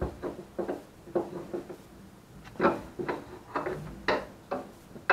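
Short metal knocks and clunks at uneven intervals, some with a brief ring, as a KYB gas-charged shock absorber is lowered through the upper control arm and into the shock tower of a 1966 Ford Mustang's front suspension; the loudest come about two and a half and four seconds in.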